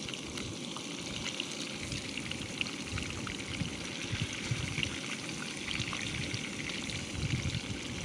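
Peamouth pieces frying in oil in a pan on a propane camp stove: a steady sizzle with scattered small pops and crackles, over a low rumble.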